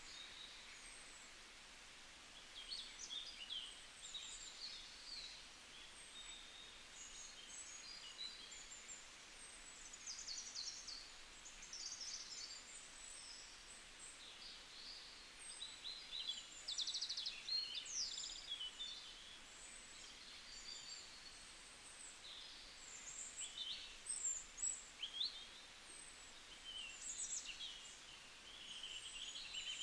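Wild birds calling and chirping, many short overlapping calls and trills at a high pitch, over a faint steady hiss of open-air ambience.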